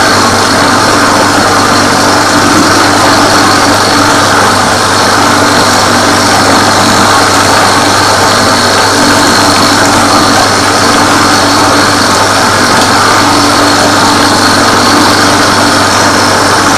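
Bowl cutter running steadily at speed, its knives spinning through beef and bacon in the turning bowl and chopping them into a smooth meat batter for Leberkäse.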